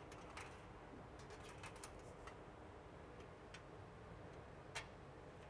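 Faint, scattered metallic clicks of B-nuts being started by hand on the fuel manifold fittings of a jet engine, over a low steady hum; the sharpest click comes near the end.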